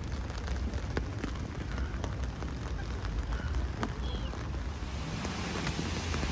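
Steady rain falling on the lake surface and the shore, with scattered sharp drop ticks close by and a low rumble underneath.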